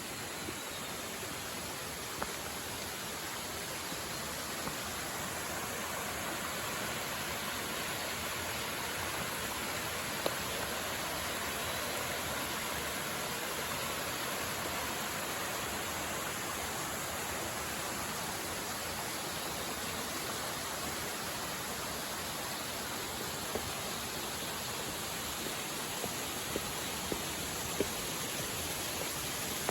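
Steady rush of running water, growing a little louder over the first several seconds, with a few sharp clicks scattered through.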